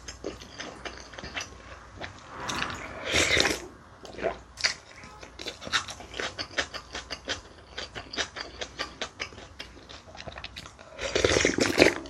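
Close-miked chewing and eating of bibimbap (rice mixed with seasoned vegetables and gochujang), with many quick, wet mouth clicks. It gets louder near the end as another spoonful goes into the mouth.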